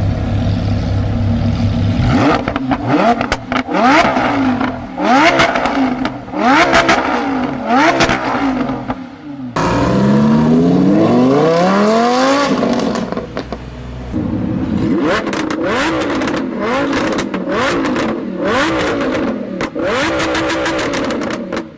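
Performance car engine revved in quick repeated blips, the exhaust crackling and popping each time the revs drop off the throttle. About ten seconds in comes one longer rev climbing steadily in pitch, followed by more blips with a dense run of crackles near the end.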